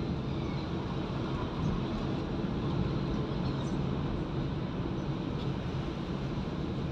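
Steady low rumble of a car's engine and tyres on asphalt, heard from inside the cabin while driving.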